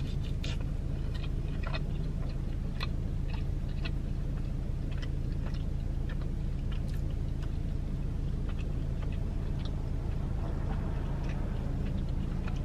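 A person chewing pizza close to the microphone: many small, irregular mouth clicks. A steady low hum from inside the car runs underneath.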